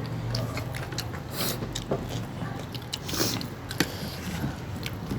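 People eating biryani: chewing, with scattered small clicks and a couple of brief scrapes against plates, over a steady low hum.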